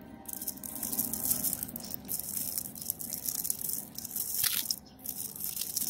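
Thin plastic wrapper of a monaka ice cream bar crinkling and tearing as it is pulled open by hand, in irregular rustles.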